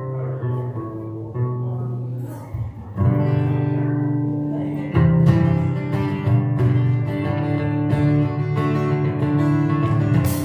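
Live worship music led by an acoustic guitar, played over sustained lower notes; the music grows fuller and louder about three seconds in.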